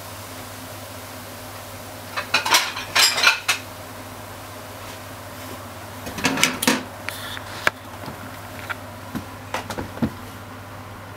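Kitchenware clattering: a burst of knocks and scrapes about two seconds in, another about six seconds in, then a few single clicks, as cookware and dishes are handled at a gas stove. A steady low hum runs underneath.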